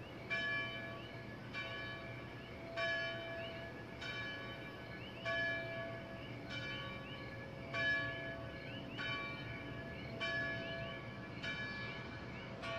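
A church bell tolling slowly and evenly, about ten strokes a little over a second apart, each one ringing on and fading before the next.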